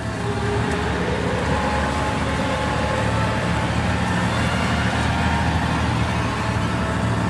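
Safari vehicle's engine running steadily as the vehicle drives, a constant low hum with road noise.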